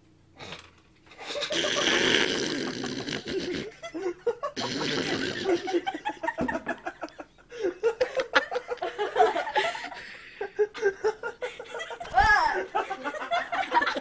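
A woman coughing and sputtering out a mouthful of dry cinnamon powder in two long, harsh blasts, a failed cinnamon challenge, followed by laughter in short, rapid bursts.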